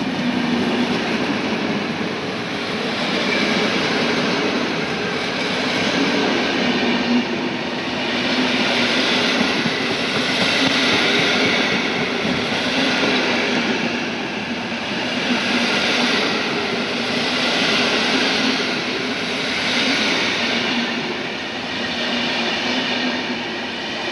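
Passenger coaches of a PKP Intercity train rolling past at speed: steady wheel-on-rail noise that swells about every two seconds as each coach goes by.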